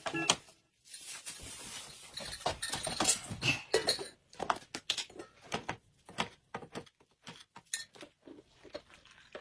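A metal spoon clinking and tapping against a glass mug, a run of short, uneven clicks from about four seconds in, as a drink is mixed in the mug. Before that, softer handling noise.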